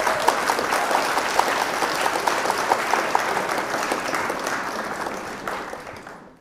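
Applause: many hands clapping in a dense, steady patter that fades away near the end.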